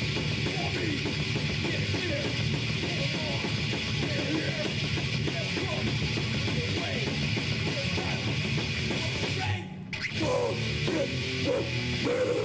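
Live heavy metal band playing: distorted electric guitars over drums and bass. About ten seconds in, the band stops for a split second, then comes back in.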